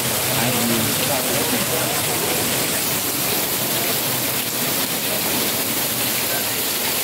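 Heavy rain pouring steadily in an even, unbroken hiss.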